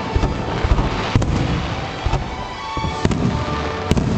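Fireworks display: a dense, continuous crackle and rumble of bursting aerial shells, broken by several sharp bangs.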